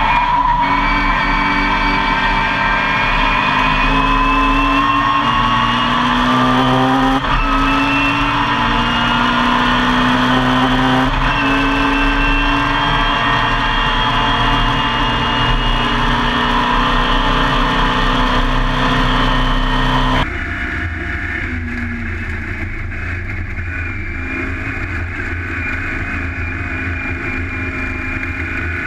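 Classic Mini race car's A-series four-cylinder engine at full throttle, heard from inside the stripped cabin. Its pitch climbs through the gears, dropping back at upshifts about 7 and 11 seconds in. About two-thirds of the way through, the sound switches abruptly to a second Mini's in-car sound, quieter and lower in pitch.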